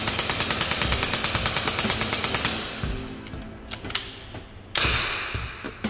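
Milsig M79A2 high-pressure-air foam dart blaster firing a full-auto burst, a rapid even rattle of about a dozen shots a second that stops about two and a half seconds in. A few single clicks follow, then a short loud hiss of air near the end.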